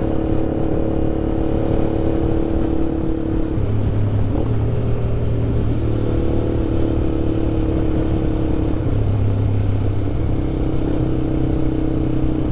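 Honda CBX 250 Twister's single-cylinder four-stroke engine running through an aftermarket Roncar exhaust, ridden gently. The engine note holds steady, changing pitch in a few steps: about a third of the way in, around halfway, and again about three quarters of the way in.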